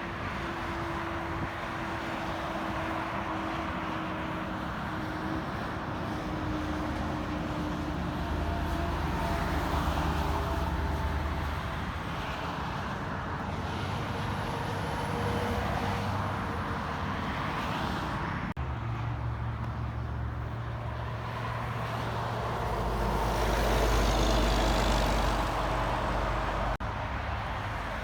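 Road traffic passing: engines and tyre noise of cars and trucks going by, with a heavier vehicle's low engine rumble loudest a little over three-quarters of the way through. The sound breaks off abruptly twice.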